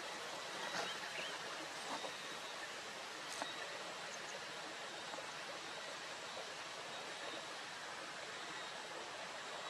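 Steady outdoor noise hiss, with a few faint short chirps and a single sharp tick in the first four seconds.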